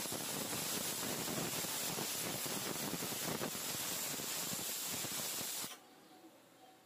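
Goat brain with masala frying in hot oil in a kadai: a steady sizzle that cuts off suddenly about a second before the end.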